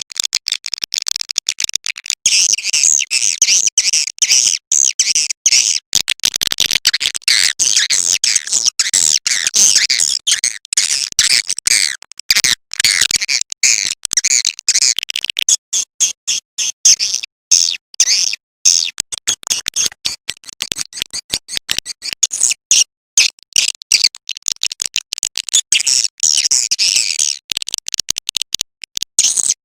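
Swiftlet lure-call recording: dense, rapid, high-pitched chirping and twittering of swiftlets, chopped by many very short gaps, of the kind played to call swiftlets into a nesting house.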